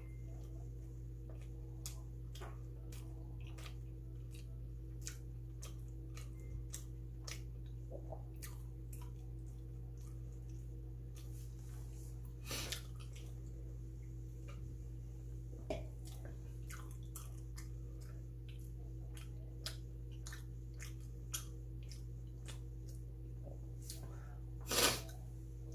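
A person chewing bungeoppang (fish-shaped pastry), with many small mouth clicks and two louder noisy bites or crunches, one about halfway through and the loudest near the end, over a steady electrical hum.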